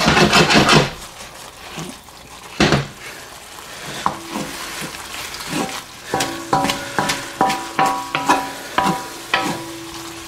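Wooden spatula scraping and knocking in a cast iron wok as ramen noodles are stir-fried in their sauce, over a steady sizzle, stirred until the sauce thickens. The strokes come thick at the start, thin out in the middle, then come about two to three a second in the second half.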